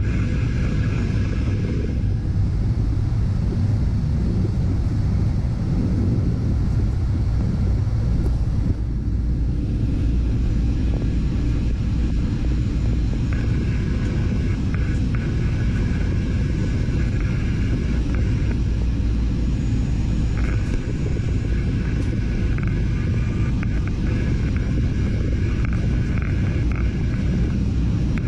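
Boeing 737 jet engines and airflow during landing: a steady low rumble. A higher whine sits over it at the start, drops away after about two seconds, and comes back around halfway through.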